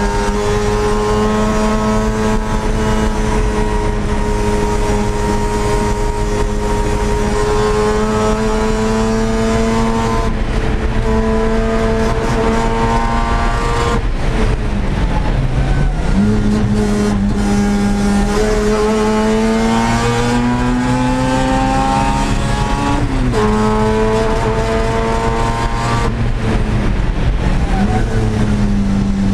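A 1982 Mazda RX-7's 13B rotary engine racing at high revs, heard from inside the stripped cabin. Its pitch holds steady for long stretches, falls sharply several times and climbs again as the car accelerates.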